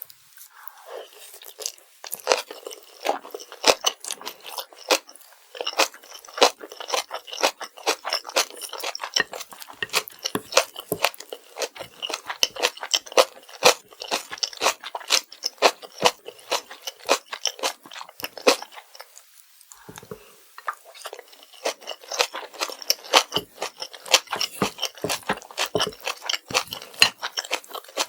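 Close-miked chewing of kimchi fried rice: a dense run of wet, crunchy mouth clicks, easing off briefly near the start and again about two thirds of the way through.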